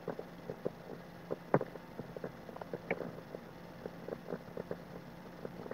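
Faint, irregular small ticks and taps of a fine watercolour brush making short dabbing strokes on paper, over a low steady hum, with one sharper tick about a second and a half in.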